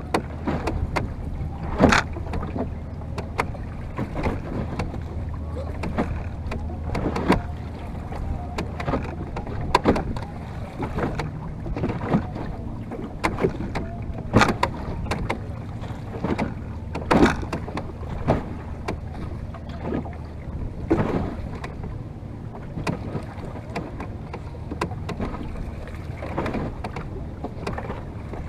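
Water slapping and washing against the hull of a small wooden boat under way, with a sharp knock or slap every two to three seconds. A low steady hum runs under it and fades out after about twenty seconds.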